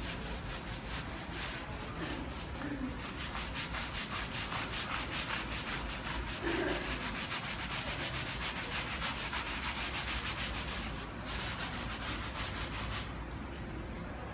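Stiff-bristled scrub brush on a pole scrubbing quickly back and forth across a painted, textured stucco wall, a rhythmic scratchy brushing that works a sprayed rust stain off. The scrubbing stops near the end.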